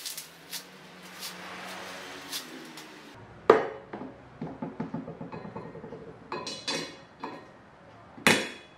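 Chrome five-star office chair base being unwrapped from its foam packing, then set down on a wooden table with a loud knock about three and a half seconds in, followed by metal clinking and rattling as it is handled. Another sharp knock comes near the end.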